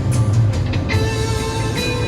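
Background music with guitar, a new sustained chord coming in about a second in.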